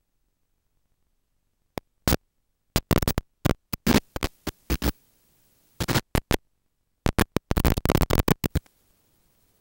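Irregular bursts of harsh crackling, scratchy noise that start about two seconds in, come in quick clusters, and stop shortly before the end.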